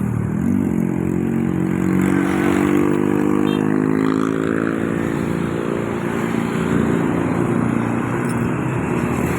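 A bus engine droning as it drives past, its pitch climbing slowly as it speeds up over the first few seconds, then levelling off.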